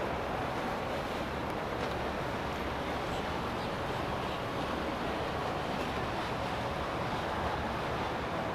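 Steady wind and water noise, even throughout with no distinct events.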